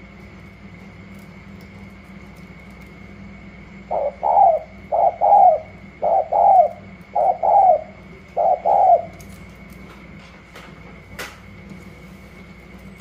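Caged spotted dove cooing: five two-part coos, each a short note and then a longer falling one, about one a second, starting about four seconds in.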